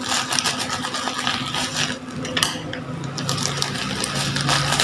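Plastic bubble wrap and a plastic bag crinkling and rustling as hands pull them open, then scissors snipping at the wrap near the end.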